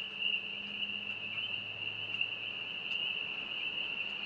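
A steady, high-pitched chorus of calling animals, such as frogs or insects, from the wet woods. A faint low hum fades out within the first two seconds.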